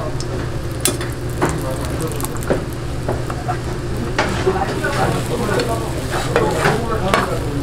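Rolled egg omelette sizzling in oil in a non-stick frying pan. A metal slotted spatula scrapes and clicks against the pan now and then as the roll is turned and pressed.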